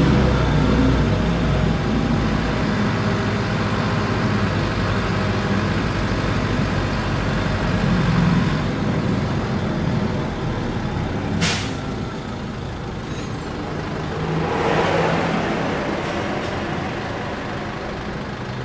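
City bus engine running steadily under way, with a short sharp hiss about eleven seconds in and a swell of louder road and engine noise around fifteen seconds.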